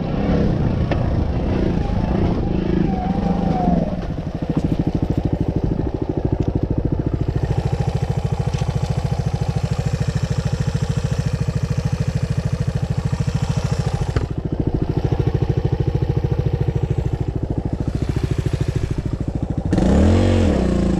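Dirt bike engine running while riding, its revs changing as it goes, with the engine getting louder and the pitch rising and falling near the end.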